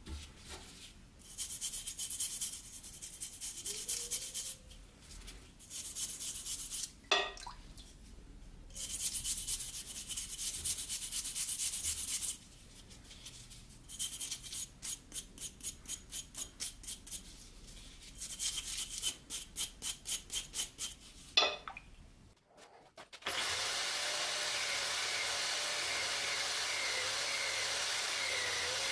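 Rusted steel blade being worked by hand with an abrasive, in runs of quick back-and-forth scraping strokes, about three a second, with short pauses. About 23 seconds in, a steady electric motor starts and keeps running.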